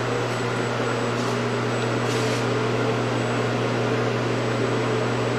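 CNC knee mill with Yaskawa servo-driven axes running its homing routine: a steady electrical and mechanical hum as the axes travel back to their home positions.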